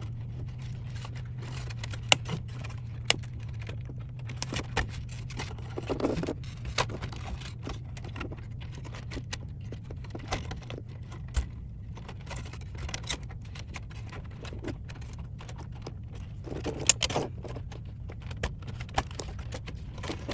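Irregular clicks, taps and light rattles as a cassette deck's circuit board is worked past its standoffs inside the chassis, with a steady low hum underneath.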